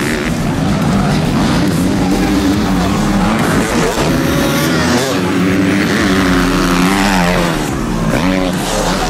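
Motocross dirt bike engines revving, their pitch climbing and dropping again and again as the throttle is opened and closed.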